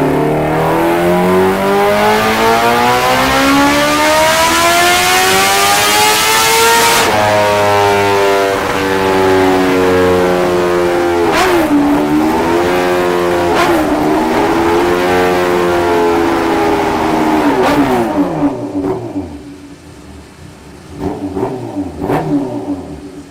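Sport motorcycle engine accelerating hard, its pitch climbing steadily for about seven seconds, then dropping abruptly at a gear change. It holds high revs with two brief dips, then winds down, with a few short throttle blips near the end.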